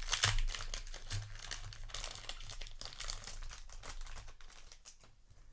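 A Magic: The Gathering set booster pack's wrapper being torn open and crinkled by hand, then the cards being slid out of it. The crinkling is loudest in the first second or so and fades towards the end.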